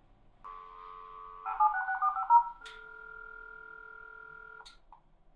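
A modem dialing out over a telephone line simulator: a dial tone, then a quick run of touch-tone (DTMF) digits, the loudest part, then about two seconds of steady ringback tone, cut off by a click and a second click as the answering modem picks up.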